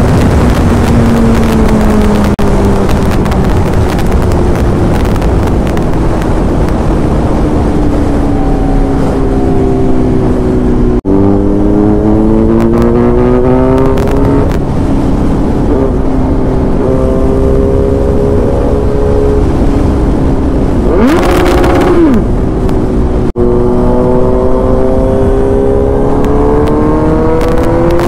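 Kawasaki Z900's inline-four engine running hard at highway speed, its pitch sliding down and climbing again with the throttle, over steady wind rush. Twice, about eleven and twenty-three seconds in, the sound dips for an instant and the pitch jumps as a gear changes. Just past twenty seconds a short separate sound with a quick glide in pitch breaks in.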